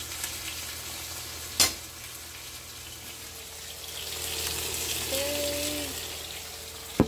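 Rib eye steak searing in a smoking-hot cast-iron skillet: a steady sizzle that swells for a couple of seconds about four seconds in. A sharp clack comes about a second and a half in, and another right at the end.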